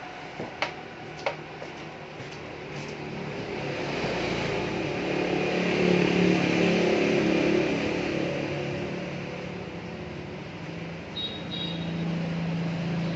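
A motor vehicle's engine passing by, swelling to its loudest in the middle and fading away, over a steady hum. Two sharp clicks come in the first second or so.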